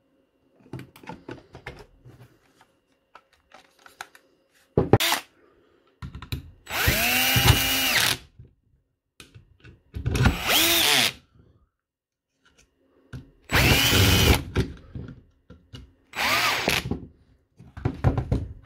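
Cordless DeWalt drill-driver running in five short bursts, each spinning up and winding down, driving the screws back into a DeWalt 18V battery pack's plastic casing. The longest burst runs about two seconds, and light handling clicks come between the bursts.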